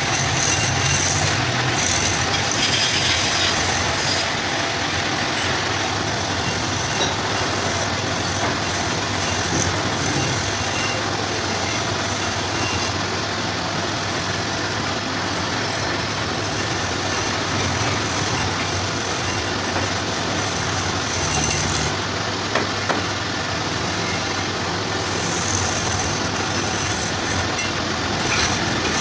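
Wood lathe running, with a turning tool cutting the spinning wood: a steady rushing noise over a low hum, with two short ticks a little past two-thirds of the way through.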